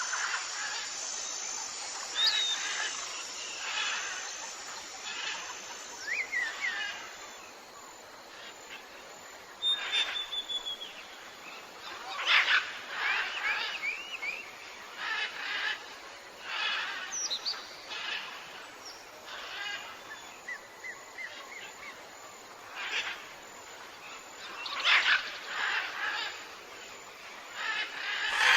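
Tropical jungle ambience of many birds calling over a steady background hiss: a continual mix of short chirps, rapid chattering calls and brief whistled glides from several birds.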